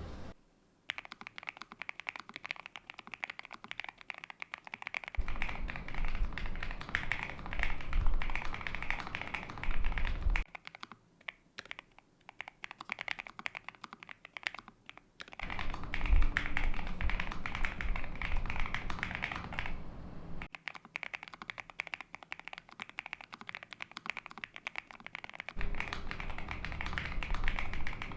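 Typing on a Nuphy NOS75 low-profile mechanical keyboard with Gateron low-profile (nano) switches, an aluminium plate and all the stock foam fitted: a fast, dense stream of keystrokes. They thin out and go quieter for a few seconds in the middle.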